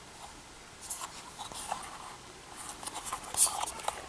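Handling noise: fingers rubbing and clicking against the small plastic Echo Dot and its charger, with light scratchy rustles, the loudest about three and a half seconds in.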